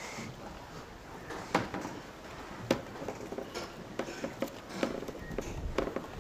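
Irregular light knocks and clicks of someone shifting about on a wooden dock, with handling noise close to the microphone; the sharpest knock comes about two and a half seconds in.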